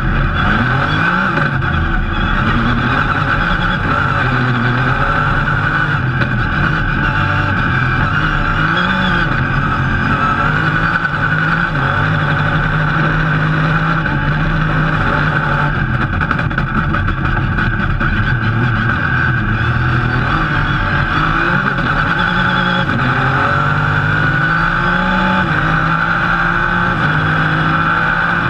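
Rally car engine heard from inside the cockpit at stage pace, revving up and dropping back again and again as the driver changes gear, over steady road and cabin noise.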